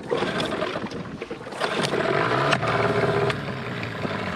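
Small Mercury outboard motor on an inflatable dinghy starting up. It catches about one and a half seconds in and runs, its revs rising, then settles slightly near the end.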